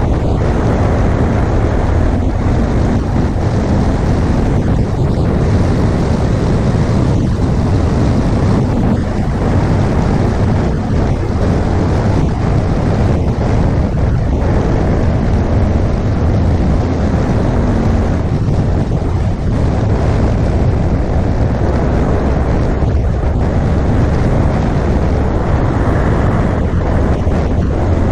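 Steady wind noise rushing over the microphone, with the low drone of a BMW R1200GS Adventure's flat-twin engine cruising underneath.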